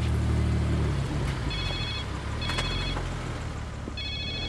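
A phone ringing with an electronic ringtone: three short rings, the first about a second and a half in, over a steady low engine hum.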